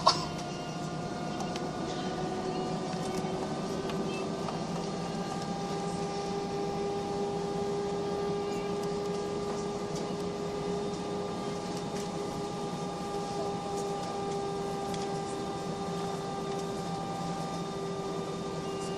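Airliner engines heard from inside the passenger cabin before take-off: a steady drone with several held tones that rise slightly in pitch about four to five seconds in as the engines spool up. A sharp click at the very start.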